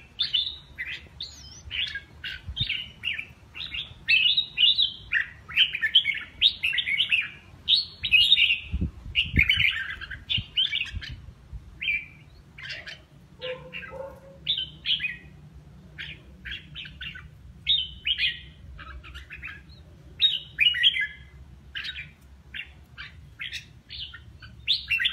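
Caged red-whiskered bulbul singing: short, quick warbled phrases one after another, a little sparser around the middle.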